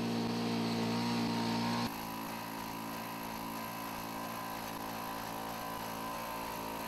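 Engine of a Boston Dynamics LS3 four-legged robot running steadily as it walks, a constant mechanical drone. It drops a little in level and changes tone about two seconds in.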